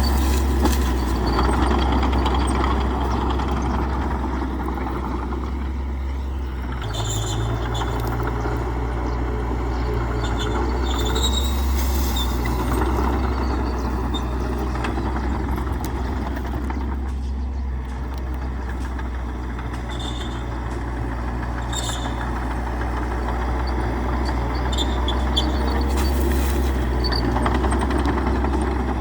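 Heavy diesel bulldozer engine running steadily under load, its note shifting about seven seconds in, with short high-pitched metallic squeaks now and then.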